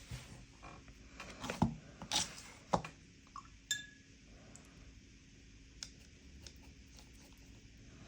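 Painting supplies being handled and knocking together: several sharp clicks and knocks in the first three seconds, one short ringing clink near four seconds, then a couple of faint ticks.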